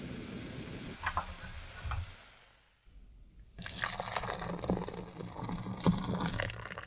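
Fresh cream simmering to a foam in a saucepan, then after a short pause hot cream poured in a thin stream into a glass measuring jug over dark chocolate pieces, splashing as it lands.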